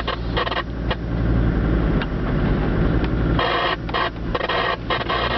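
Off-road 4x4 engine running slowly, heard from inside the cab, with frequent knocks and rattles as the vehicle jolts over a rough track.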